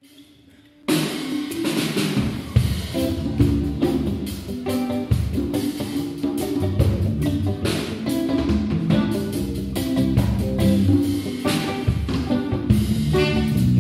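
A live band playing: drum kit, congas, electric guitars and keyboard with a steady beat. It starts faintly and comes in loudly about a second in.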